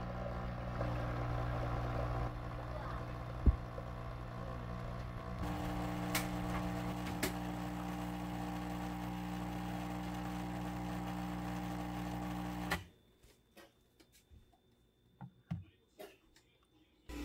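Nescafé Dolce Gusto capsule coffee machine's pump running with a steady buzz as it dispenses coffee into a glass mug, its tone shifting about five seconds in, then cutting off suddenly near the end. A few light clicks and knocks follow as the glass mug is lifted off the drip tray.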